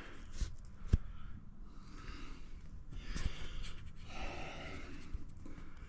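Soft breathing close to the microphone, in a few airy swells, with one sharp click about a second in.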